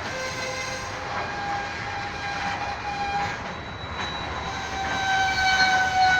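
Norfolk Southern freight locomotive's air horn sounding a long steady blast that dips briefly about two-thirds of the way through and comes back louder near the end, over the low rumble of the train.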